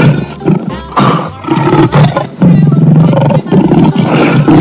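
Lion roaring: several loud, rough roars in a row, the longest about halfway through.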